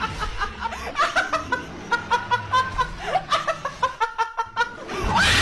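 High-pitched laughter in quick, repeated bursts, about four a second. A loud hissing noise cuts in near the end.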